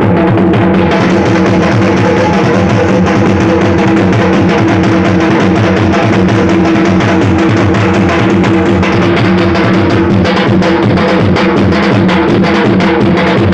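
Dhol drums beating a fast, loud rhythm, with steady held musical notes underneath.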